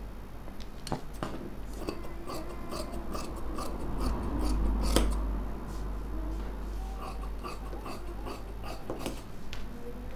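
Fabric scissors cutting through dress cloth on a table: a run of short, crisp snips as the blades close. A low rumble swells and fades about halfway through.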